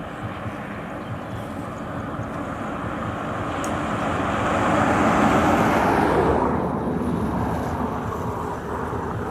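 A vehicle passing by: its noise builds for about five seconds, peaks, then falls away with a drop in pitch as it goes past.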